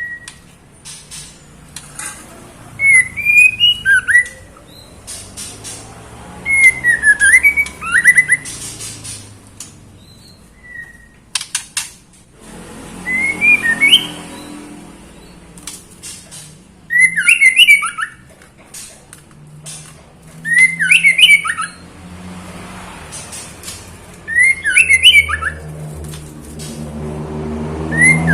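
Female white-rumped shama calling: short phrases of quick swooping whistled notes, repeated about every three to four seconds. A female in breeding condition calling for a male, used to stir other shamas into song.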